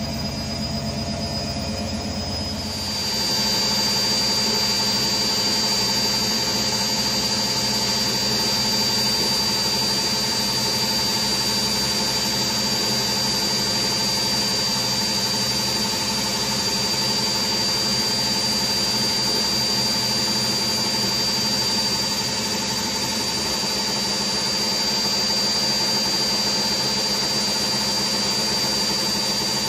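Beko WRE6512XWWE front-loading washing machine in its spin cycle: a steady high whine over a rushing rumble, getting louder about three seconds in. The spin is where the machine vibrates heavily, the fault it is under service for.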